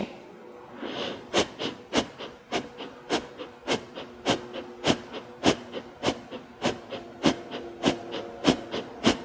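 A woman doing Kundalini yoga breath of fire: quick, forceful breaths through the nose, each exhale pumped out by pulling in the belly. The breaths come evenly at about three a second, starting about a second in.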